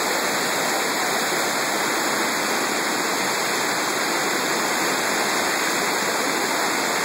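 Whitewater river rapids rushing steadily through a rocky gorge, a constant churning of fast water.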